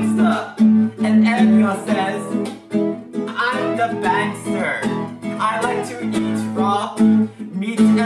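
Acoustic guitar strummed steadily in a repeating chord pattern, with a man singing over it.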